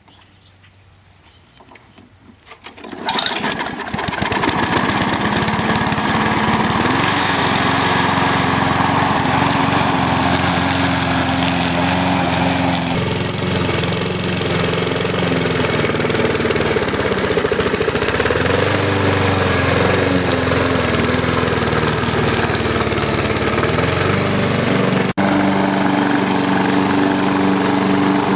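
Walk-behind lawn mower's 5 hp Briggs & Stratton engine starting about three seconds in, then running steadily at full throttle. Its note shifts a little and dips at times, then recovers.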